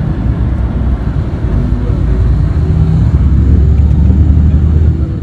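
Bus engine running, heard as a steady low rumble inside the cabin; it grows louder about two seconds in.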